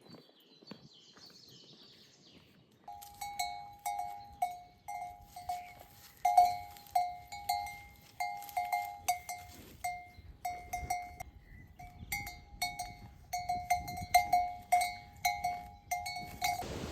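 A metal livestock bell clanking irregularly, about two ringing strikes a second, starting about three seconds in and stopping just before the end.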